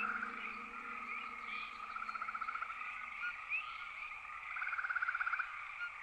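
Frog chorus: pulsed trilling calls about a second long, repeating every two to three seconds, with short higher chirps between them. The last low sustained music tones fade away in the first second or two.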